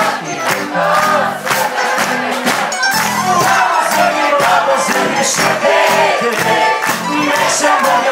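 Live pop band playing a song through the PA, amplified guitars and drums keeping a steady beat, with many voices singing and a crowd joining in and cheering.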